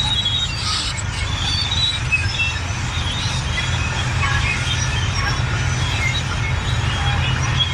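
Large crawler bulldozer working, its diesel engine running steadily under scattered short, high metallic squeaks and squeals from the steel tracks.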